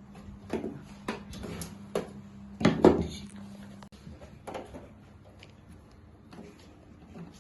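Clicks and knocks of PC parts being handled and fitted into a computer case, with the loudest clatter about three seconds in, over a steady low hum.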